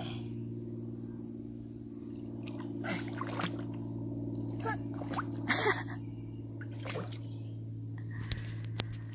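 Water splashing as a small child wades through a shallow creek and lifts a ball out of the water, with several short splashes, the loudest about halfway through. A steady low hum runs underneath.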